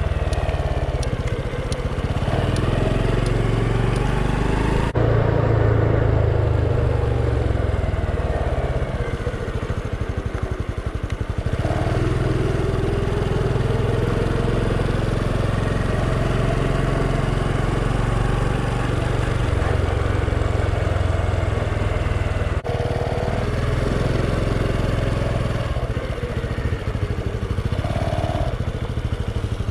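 Honda Super Cub's single-cylinder four-stroke engine running while riding, its pitch rising and falling with the throttle under a steady low rumble.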